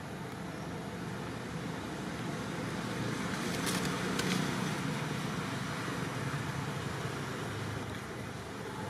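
Steady outdoor background noise, a low rumble with hiss, swelling a little around the middle, with a couple of faint brief rustles about four seconds in.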